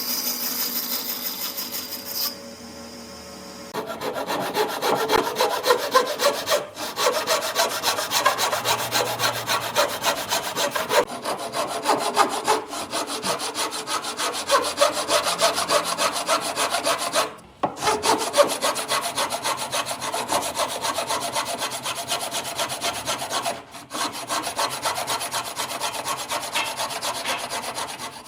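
Wood being worked by hand in rapid back-and-forth rubbing strokes, in the manner of sanding or sawing, with a few short pauses. At the start a steady high-pitched whine stops about two seconds in.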